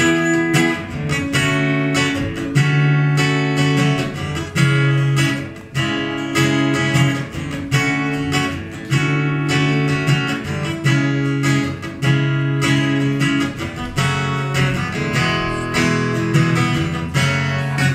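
Acoustic guitar strummed in a steady rhythm, playing an instrumental interlude of a worship song's chord progression without singing.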